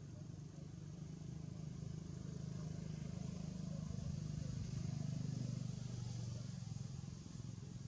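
Low engine hum of a motor vehicle in the background, growing louder to a peak about halfway through and then fading, as if passing by.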